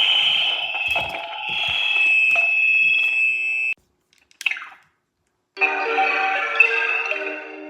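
High, steady electronic tones like an alarm or ringtone that stop abruptly about four seconds in. A brief falling chirp and a silent gap follow, then several held pitches sounding together like music.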